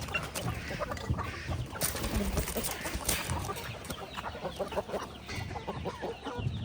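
Several chickens clucking, with short, irregular calls overlapping one another.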